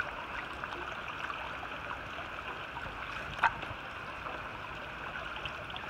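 Steady rain falling on a flooded pavement and puddle, with the water sloshing as a raccoon hide is rinsed in it by hand. One sharp tap stands out about three and a half seconds in.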